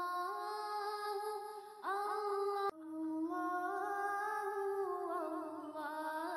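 Wordless vocal background music: long held, gently gliding notes. About two and a half seconds in, it breaks off sharply and starts again.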